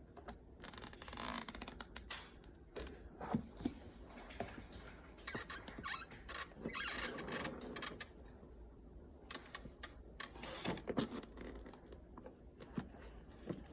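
Handling noises of a toy airsoft gun being unpacked: rustling and scattered plastic clicks and knocks, with a loud burst of rapid rustling about a second in and a sharp click near the end.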